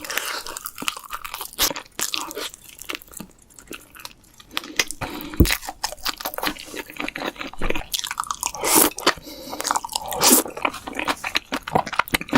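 Close-miked crunching and chewing of crisp fried chicken: a dense run of sharp crackles from big bites, a few of them louder.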